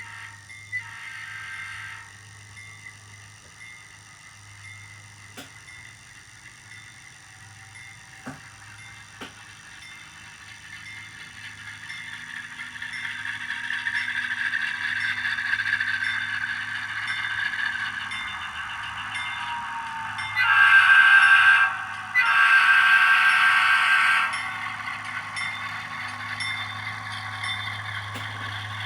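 A train's running sound builds over several seconds. About twenty seconds in come two long horn blasts, the second a little longer, which are the loudest sound here.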